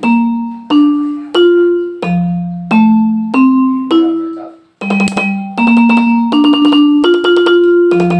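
Roland SPD-20 electronic percussion pad struck with drumsticks, sounding marimba-like pitched notes through its output. At first single notes come about every two-thirds of a second, stepping up in pitch. From about five seconds in, fuller notes overlap and ring on. This is a test of the unit after repair of its crackling output.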